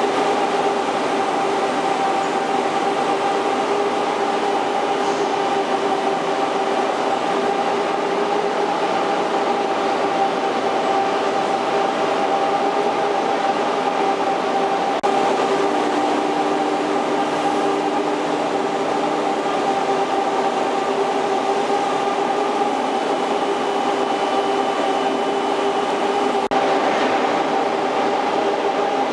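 Waldrich Siegen WSD 1350 heavy-duty CNC lathe running while it turns a large steel roll: a steady machine hum with a constant whine from its drive. A second, lower tone joins in for a few seconds past the middle, and a faint higher whine near the end.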